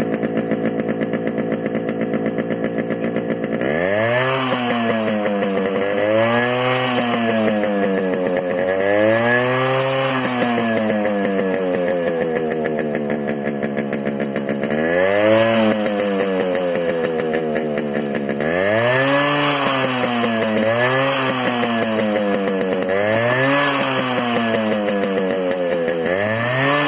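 Yamaha RX 100's single-cylinder two-stroke engine heard at the silencer outlet. It idles steadily, then from about three and a half seconds in it is revved hard about eight times, each rev rising in pitch and falling back.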